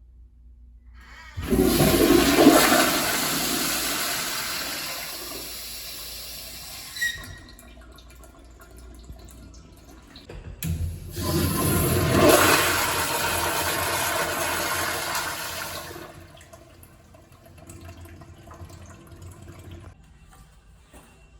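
Two toilet flushes, one after the other. Each starts with a sudden loud rush of water that slowly fades over about five seconds, and each is followed by fainter running water as the tank refills.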